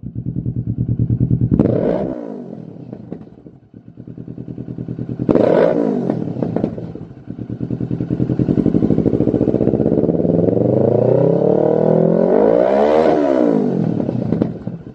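Kawasaki Z650 parallel-twin engine through a Lextek GP1 aftermarket silencer, revved from idle. Two quick throttle blips about two and five seconds in each rise sharply and fall back; then a longer rev is held high from about eight seconds, climbs to a peak near thirteen seconds, and drops back toward idle.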